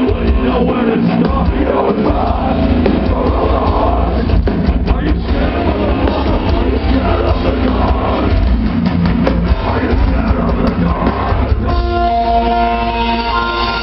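Heavy metal band playing live through an outdoor stage PA, with distorted guitars, drums and heavy bass, loud and dense. About twelve seconds in, the pounding playing gives way to steady held tones.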